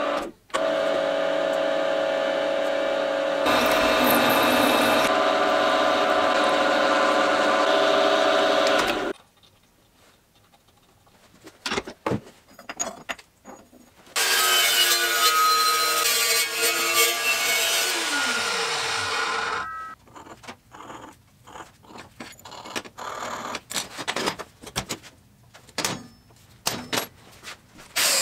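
Drilling machine running with a steady hum while a tap cuts threads in a steel block, stopping about nine seconds in. It is followed by scattered clicks and scrapes of metal handling. It runs again from about fourteen seconds, winds down in pitch and stops near twenty seconds, and starts again at the very end.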